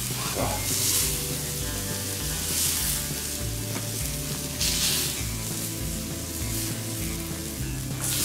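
Lamb fillets sizzling on a wood-fired steel griddle plate as they are lifted off with tongs, the sizzle swelling every couple of seconds. Background music plays underneath.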